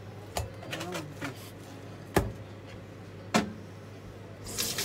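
Kitchenware being handled: a few sharp knocks as the plastic meat tray and other things are set down and picked up around the sink, then a short rustle near the end, over a low steady hum.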